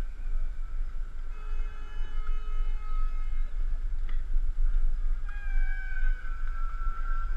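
Outdoor crowd noise with heavy wind rumble on the microphone, and several long, steady high-pitched tones sounding together and overlapping, one gliding down about five seconds in.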